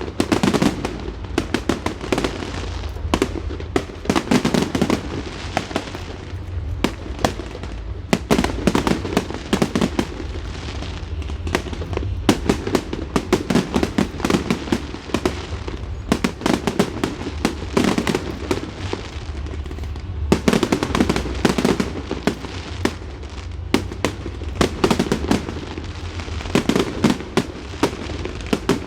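Fireworks display going off continuously: a dense run of sharp cracks and pops, many a second.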